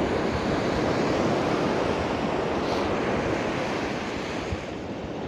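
Sea surf washing onto a beach, a steady rush that swells slightly and then slowly eases off, with wind buffeting the microphone.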